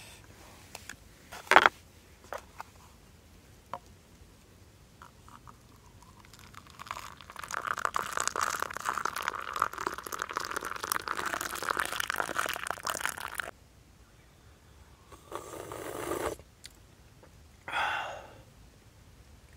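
A sharp clank, then milky coffee poured from a steel pot into a cup for about seven seconds. Two short sips from the cup follow near the end.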